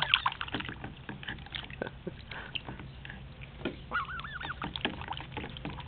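Canada goose dabbling its bill in a bucket of water and nibbling a hand, giving many short splashing clicks. About four seconds in it gives a quick run of soft, rising-and-falling calls.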